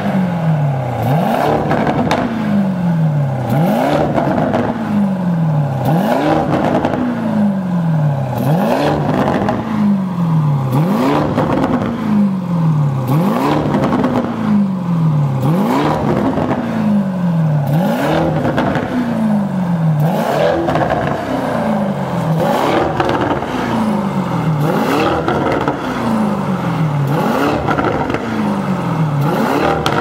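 Lamborghini Urus's twin-turbo V8 revved again and again through a Fi Exhaust valvetronic catback with the valves open in Corsa/Sport mode: each quick rise in revs falls back, about every second and a half, with crackling as the revs drop.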